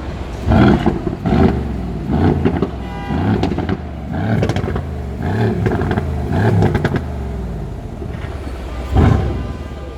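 Mercedes-AMG GLC63 S's twin-turbo V8 being blipped in a string of quick revs about once a second, each rising and falling back, with a few sharp crackles from the exhaust; after a short steadier stretch of idle comes one more rev near the end.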